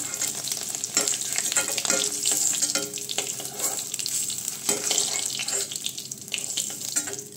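Hot oil sizzling in a kadai around fried boiled eggs and potatoes, with a steel spatula clicking and scraping against the pan as they are scooped out. The sizzle gets quieter near the end as the pan empties.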